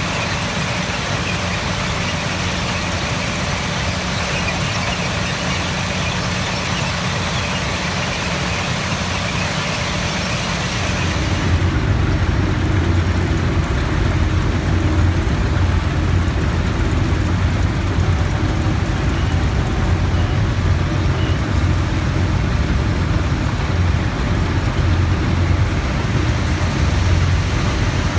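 Plasser & Theurer PM 1000 URM track-renewal machine at work: a steady, loud mechanical din of its engines and conveyors. About eleven seconds in, the sound turns to a deeper, heavier rumble with less hiss on top.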